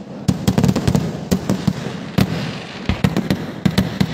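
Fireworks of a Kerala vedikettu display: a rapid, irregular string of sharp bangs from bursting shells, about three or four a second, over a steady rumble.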